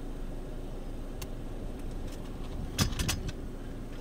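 A steady low rumble, with a single click about a second in and a short cluster of sharp clicks and a jangling rattle about three seconds in, which is the loudest part.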